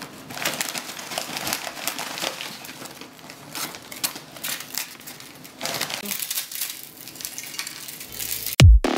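Tortilla chips crackling and crunching as they are crushed by hand, in many short bursts. Electronic dance music with a heavy beat comes in near the end.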